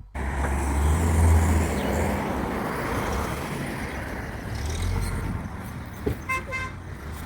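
Road traffic passing on a busy expressway, with a loud low rumble of a vehicle going by in the first couple of seconds. A short car horn toots twice about six seconds in.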